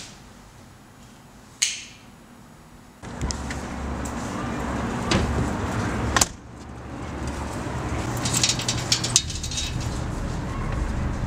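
Quiet room tone with one sharp click, then from about three seconds in a loud outdoor city rush: wind buffeting the microphone over a low traffic rumble, broken by a few knocks and clicks.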